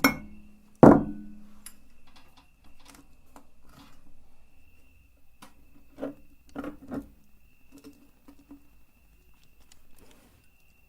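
Objects being handled on a hard surface: one loud knock with a brief low ring about a second in, then light scattered taps and a few small knocks.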